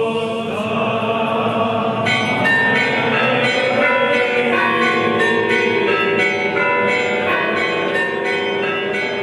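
Orthodox clergy chanting. About two seconds in, a peal of church bells joins, ringing many overlapping notes: the bells ringing out for the Resurrection at Easter night.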